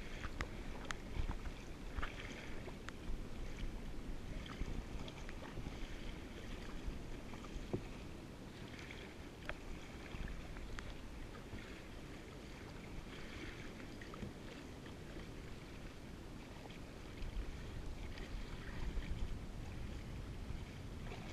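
Kayak paddle strokes splashing and water lapping against the kayak, with a low wind rumble on the microphone that eases off in the middle.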